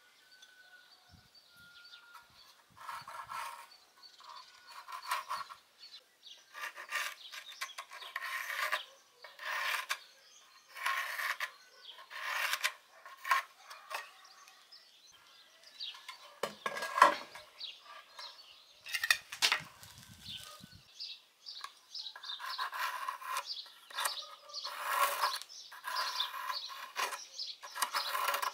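Pencil scratching on a wooden board in repeated short strokes, tracing a curve around a round disc.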